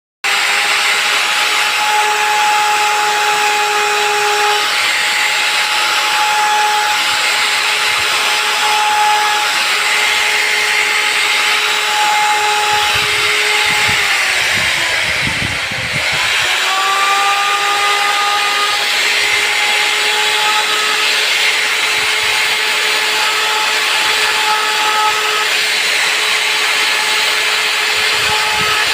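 Handheld CNC router spindle running and cutting wood: a loud, steady whine over cutting noise. About halfway through, the pitch sags briefly as the spindle slows, then climbs back to speed.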